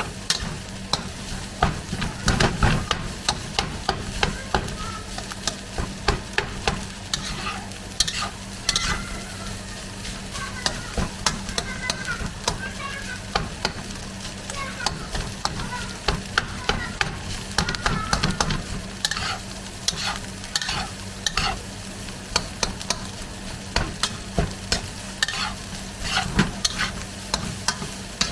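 Garlic fried rice sizzling in a hot pan while a spatula stirs and tosses it, scraping and tapping against the pan many times at an uneven pace.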